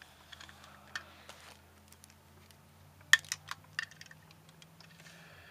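Hard plastic Beyblade launchers and parts clicking and clattering as they are handled and set down, with a single click about a second in and a cluster of sharp clicks about three seconds in.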